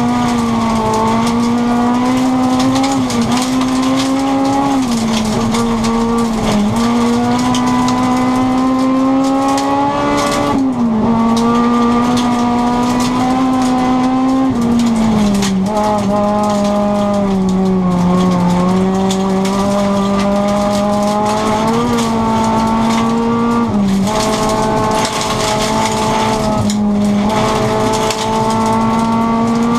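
Rally car's engine at high revs heard from inside the cabin, its pitch climbing steadily and then dropping sharply again and again with gear changes and lifts. Under it runs a steady rush of tyres on the gravel road.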